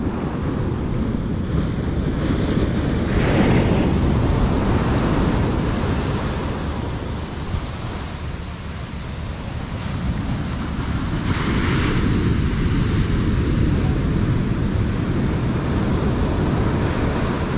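Ocean surf breaking and washing up a sandy beach, with wind buffeting the microphone. The wash swells louder about three seconds in and again around eleven seconds.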